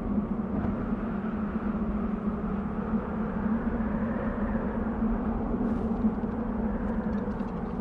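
Desert wind blowing steadily: a dense, even rushing with a low hum, and a few faint ticks in the last couple of seconds.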